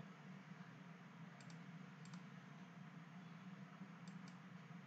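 Computer mouse clicks: one sharp click right at the start, then a few faint clicks spaced out, over a low steady hum, otherwise near silence.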